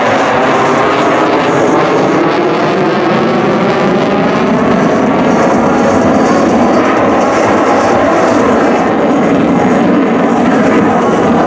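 CF-18 Hornet fighter jet's twin General Electric F404 engines running in full afterburner, a loud steady jet noise with faint gliding tones running through it as the jet passes.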